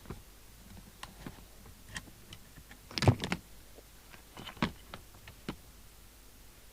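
Scattered light clicks and taps of small hand tools handled on a workbench while a coil is removed from a CB radio's circuit board, with a louder cluster of knocks about three seconds in.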